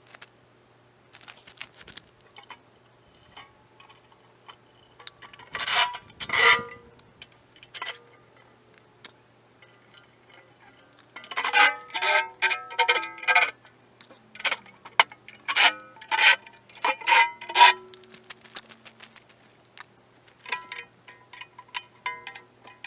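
Irregular metallic clanks and taps of steel parts and hand tools being handled on the excavator. A few strikes ring briefly, and there is a dense run of clanks in the middle.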